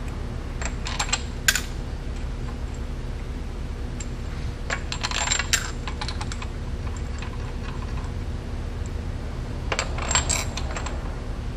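Small metallic clinks and rattles of steel bolts being handled and threaded by hand into a counterbore tool on a diesel engine block, in clusters about a second in, around five seconds and around ten seconds. A steady low hum runs underneath.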